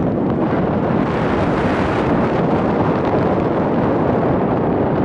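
Loud, steady wind buffeting the microphone.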